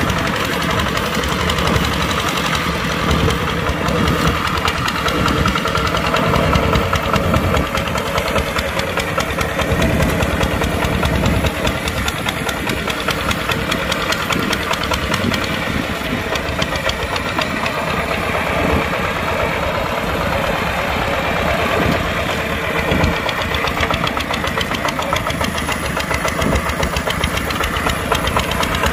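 Kubota tractor's diesel engine running steadily under load while plowing.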